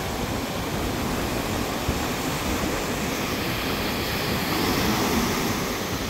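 Strong wind buffeting the microphone over the steady wash of surf breaking on the shore.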